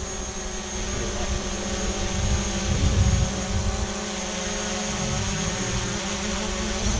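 Quadcopter drone buzzing in flight, its motor whine shifting slowly up and down in pitch as it manoeuvres, over a steady low engine hum.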